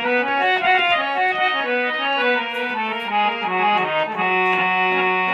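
Instrumental interlude in a Bhojpuri song: a melody on a keyboard instrument with an organ- or accordion-like tone, its sustained notes stepping up and down in a run.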